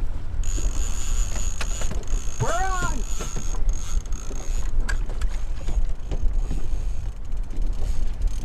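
Trolling reel screaming as a fish strikes and takes line: a steady high whine of line paying out starts about half a second in, over the low rumble of the running boat. A short shout cuts in near the middle.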